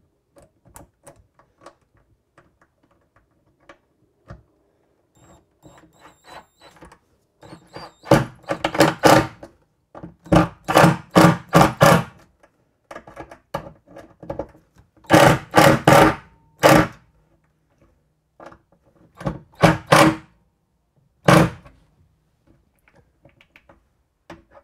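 Cordless driver sinking large screws into a cabinet hinge mounting plate. After a few faint ticks, about five bursts of rapid clacking come from about eight seconds in, one burst for each spell of driving the screws home.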